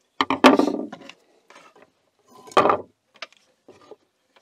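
Knives being handled on a wooden tabletop: a loud clatter as a knife is laid down about a quarter second in, a second sharp knock a couple of seconds later, then a few small clicks of a knife in its plastic sheath.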